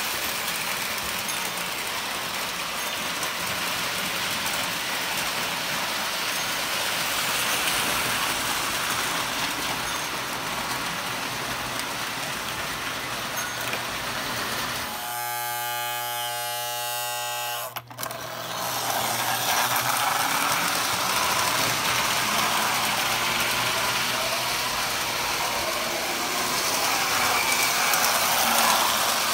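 Postwar Lionel O-gauge toy trains running on tinplate track: a steady whirring, rattling rumble of the motors and wheels, with the low hum of the transformers. About halfway through, a buzzing tone takes over for about three seconds and ends in a sharp click.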